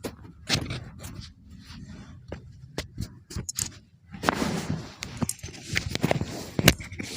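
Clothing and body rustling and scraping against a treatment table as a patient is handled during a chiropractic adjustment, with a scatter of short sharp clicks. The loudest click comes near the end.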